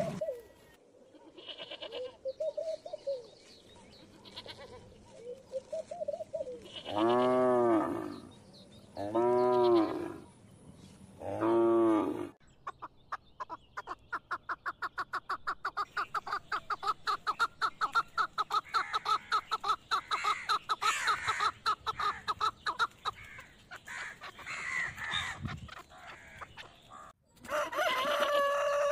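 Farmyard animals calling: a few soft calls, then three loud calls of about a second each, two seconds apart, followed by a long run of rapid short calls, several a second, and one more loud call near the end.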